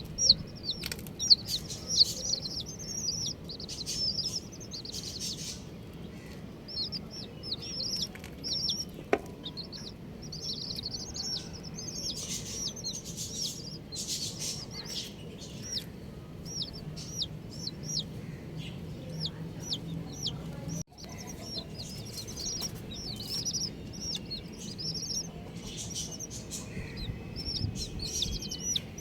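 Baby chicks peeping nonstop, many short high-pitched calls overlapping, with occasional brief clicks or taps among them.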